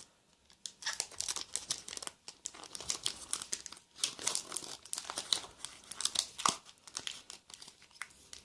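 Foil wrapper of a Pokémon booster pack crinkling and tearing as it is opened by hand: a dense run of sharp crackles starting about a second in, with a short pause around the middle.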